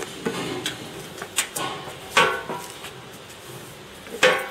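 A string of sharp metallic clanks and knocks, some ringing briefly. The loudest come about two seconds in and near the end.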